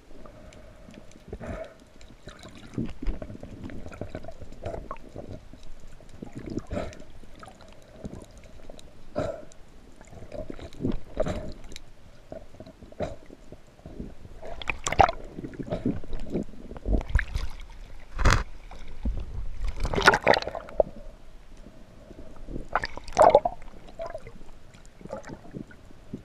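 Muffled underwater sound heard through an action camera's housing: water gurgling and sloshing, with irregular clicks and knocks. Louder clusters come about 15, 18, 20 and 23 seconds in, over a faint steady hum.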